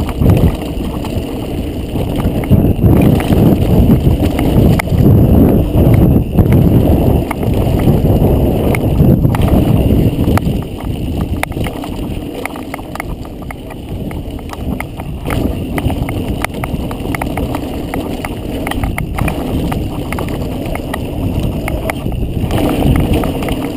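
Specialized Stumpjumper mountain bike descending a rocky dirt trail: a heavy rumble from the mounted camera with constant clatter and rattling as the tyres and frame hit stones and bumps. The ride is loudest and roughest for the first ten seconds or so, then steadier.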